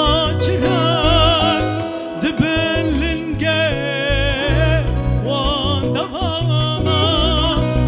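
Kurdish male singer performing live with an amplified band of electronic keyboards and drums, singing a wavering melody over a steady beat.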